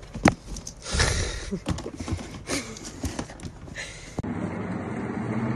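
A run of sharp knocks and scrapes with a few short, faint squeaks. About four seconds in it cuts to a steady low hum.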